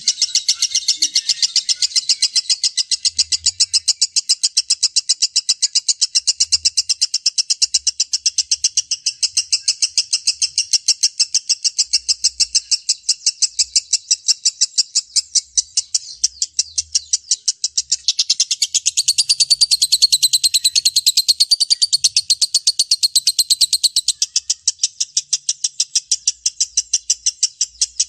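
Lovebird's long 'ngekek': an unbroken chattering trill of shrill notes, repeated fast and evenly without a pause. For several seconds in the latter half, a second, higher chatter joins in.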